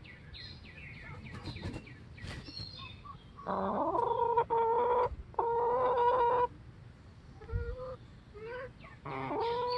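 Chickens clucking softly, with two loud drawn-out calls in the middle, the first sweeping up at its start, and another loud call beginning near the end.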